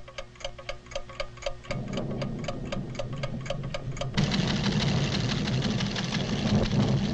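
Fast, even mechanical ticking from laboratory instruments, about five ticks a second. About two seconds in, a low rumble begins to swell, and about four seconds in it turns suddenly loud and drowns out the ticking.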